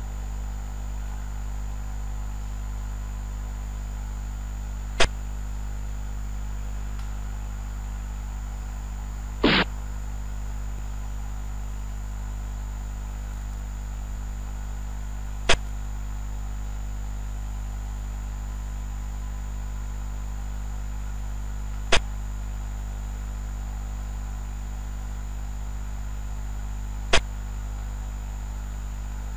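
Short, sharp click sound effects from a xiangqi board program, one each time a piece is placed. There are four clicks spread several seconds apart, and a slightly longer click-like sound about nine and a half seconds in. Under them runs a steady low electrical hum.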